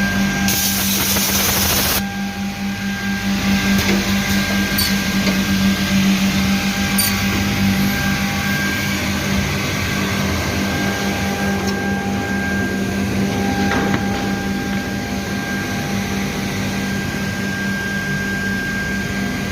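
Birlik BM7 PVC edge banding machine running steadily with a hum and a high whine. A loud hiss about half a second in lasts for about a second and a half.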